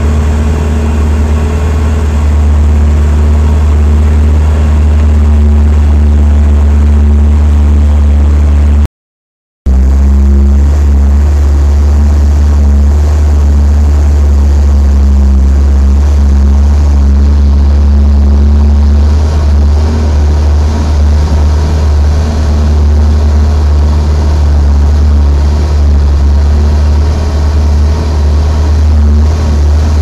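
Vehicle engine and road noise heard from inside the cab while driving: a loud, steady low rumble with a faint engine hum above it. It cuts out completely for under a second about nine seconds in.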